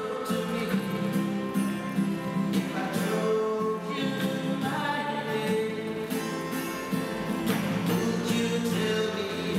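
A song sung over strummed acoustic guitar, steady throughout.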